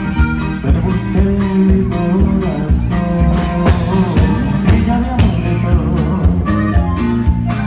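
Live norteño band playing: bajo sexto, electric bass, drum kit and saxophone over a steady drumbeat of about two hits a second, with a male lead singer's voice.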